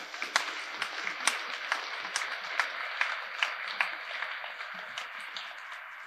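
Audience applauding: a steady patter of many hands clapping, with a few louder single claps standing out.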